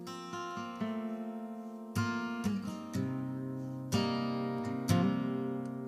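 Outro music: acoustic guitar strumming chords, with a fresh strum about once a second.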